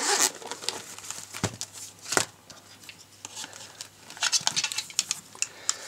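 Zipper of a hard-shell goggle case being run open, then two sharp clicks and a run of small clicks and scrapes as plastic FPV goggles are handled and lifted out of the case.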